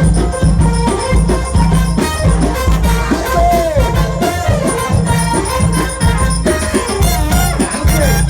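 Loud Egyptian mahraganat wedding music: a heavy, steady bass under fast, dense percussion, with wavering synth or vocal melody lines above.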